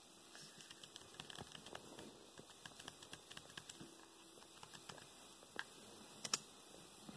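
Faint, scattered fingertip taps and light clicks on a tablet's touchscreen while scrolling a list, with one sharper click a little after six seconds in.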